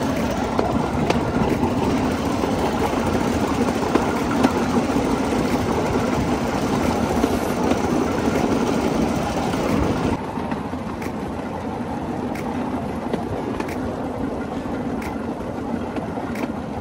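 Bamboo train running along the railway, its small engine droning steadily together with the noise of the wheels on the rails. About ten seconds in the sound turns a little quieter and duller, with a few faint clicks after that.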